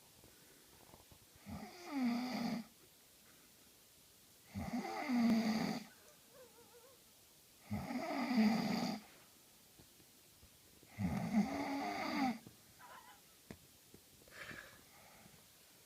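A sleeping woman snoring loudly: four long snores, each about a second long and about three seconds apart, then a weaker one near the end.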